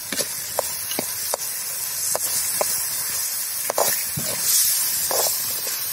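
Onion-tomato masala sizzling in an iron kadai with a steady hiss, while a steel ladle stirring it knocks and scrapes against the pan in short, irregular clicks.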